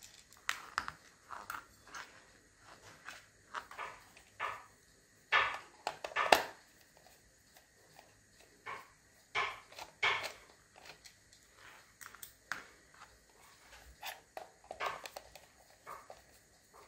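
Screwdriver working screws out of the plastic shell of a Bee-Bot toy robot: irregular small clicks, scrapes and taps of metal on plastic as the toy is handled, with a louder knock about six seconds in.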